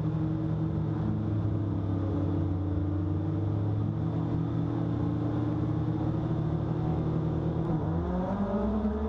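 Race cars' engines idling on the starting grid, then revving and rising in pitch about eight seconds in as the start begins.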